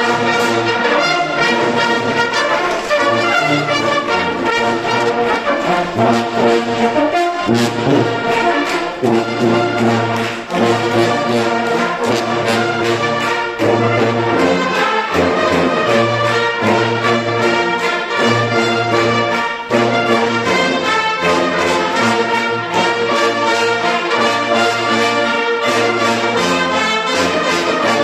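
Bersaglieri-style brass fanfare band of trumpets and trombones playing a march, loud and continuous, with a steady bass line under the melody.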